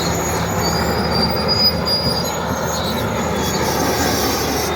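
Komatsu D80A crawler bulldozer working under load, its six-cylinder non-turbo diesel running hard, with a high squeal from the steel tracks and undercarriage.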